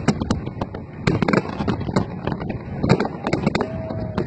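Fireworks display: a rapid, irregular string of sharp bangs and crackles from aerial shells bursting, several a second.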